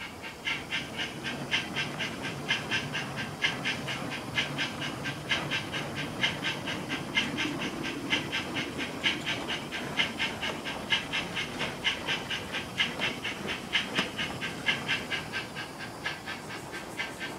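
Loksound sound decoder in an On30 model of a Victorian Railways NA class 2-6-2T narrow-gauge steam locomotive, playing recordings of Puffing Billy's 14A: a steady, even beat of exhaust chuffs from the model's small speaker as the locomotive runs. Under the chuffs is a low rumble of the train running on the track.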